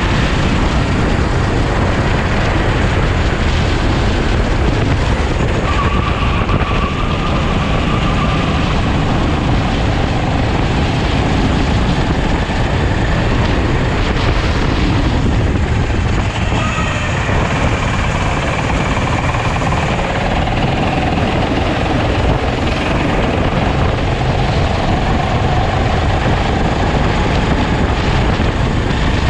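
Sodi racing kart engine heard onboard at racing speed, its note shifting up and down with the throttle, with wind rushing over the microphone.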